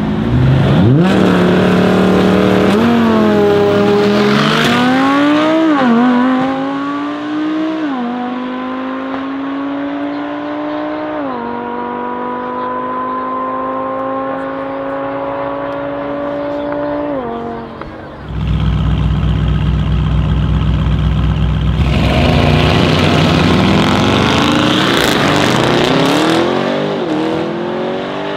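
Brabus 800 Mercedes-AMG E63 S (4.0-litre twin-turbo V8) and an Audi R8 V10 Spyder launching hard side by side in a drag race. Their engine notes climb and drop at each upshift, about half a dozen times, and slowly fade as the cars pull away. About two-thirds of the way in, after a sudden cut, a louder, deeper engine noise comes in as the Brabus and an Audi RS Q8 with a Milltek exhaust launch. Near the end, climbing engine notes with gear changes are heard again.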